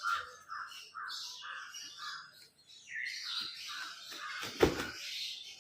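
A flock of birds chirping and peeping in quick succession, many short calls overlapping. About four and a half seconds in there is a single thump, the loudest sound.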